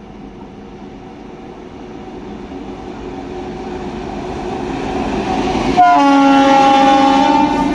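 A WAP-7 electric locomotive running light, its rumble on the rails growing steadily louder as it approaches. About six seconds in, it gives a loud blast on its horn, about a second and a half long, as it passes close, and the horn's pitch falls slightly as it goes by.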